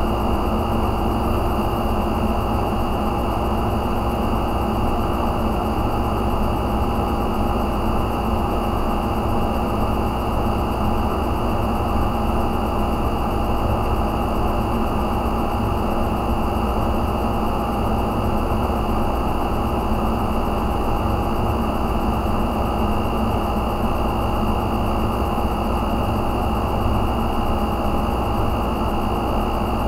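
Steady fan whir with a few faint constant hum tones, unchanging throughout.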